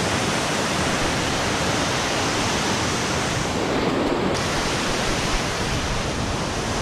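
Kali River water rushing past in a steady, even roar of flowing water.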